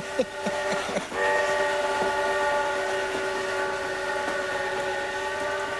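Large-scale model train's whistle sounding as the train runs: a steady chord-like whistle that breaks off briefly about a second in, then holds again until near the end. A few short clicks and knocks come in the first second.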